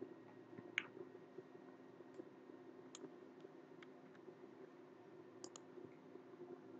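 A few sparse computer mouse clicks, including a quick double click about five and a half seconds in, over a faint steady low hum.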